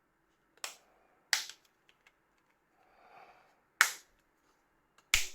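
Four sharp plastic clicks, spaced a second or two apart, as the parts of a Nokia 2720 Fold flip phone are pressed back together during reassembly.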